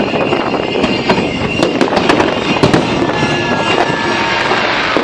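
Fireworks display going off in a dense, continuous crackle of many rapid pops and bangs, with faint whistles from rising shells.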